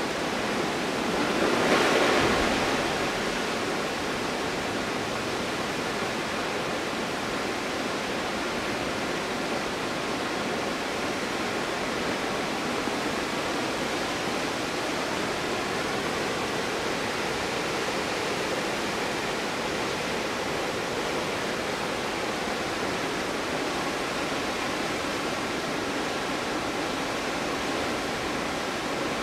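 Stuibenfall waterfall in winter: water falling steadily, with a brief louder swell about two seconds in.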